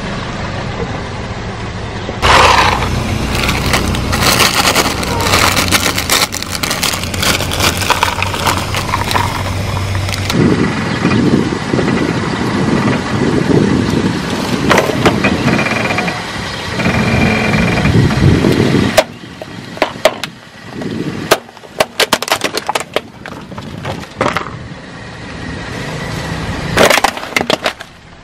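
A car tyre slowly crushing a plastic toy dump truck and a bag of crunchy cheese puffs, with the plastic cracking and snapping and the snacks crunching over the car's engine running. Near the end come a series of separate sharp cracks as the toy breaks apart.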